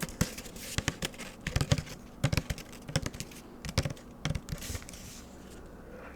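A run of quick, irregular light taps and clicks, thinning out after about five seconds.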